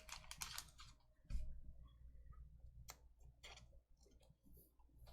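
Faint clicks and short scrapes of trading cards being handled and slid about, a few sharper clicks scattered through.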